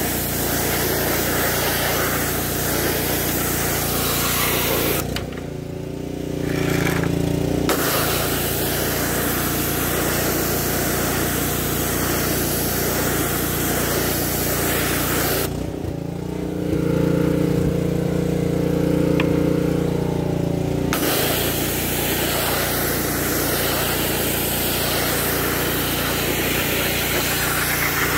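Gas-engine pressure washer running steadily while its wand sprays water onto a plastic grille. The spray hiss stops twice, once for a couple of seconds and once for about five seconds, while the engine keeps running.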